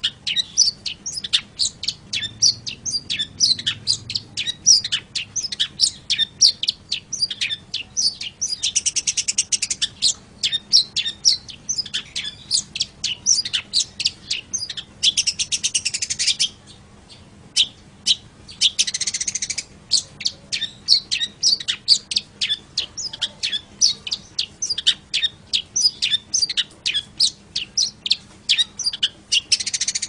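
Long-tailed shrike (cendet) singing: a fast run of short, sharp, high notes, broken by longer buzzing rattles about 9, 15 and 19 seconds in and again near the end, with a brief pause about 17 seconds in.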